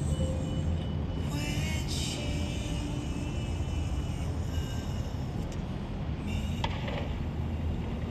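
Steady low rumble of distant road traffic, with a faint instrumental passage of the fireworks show's soundtrack playing over it.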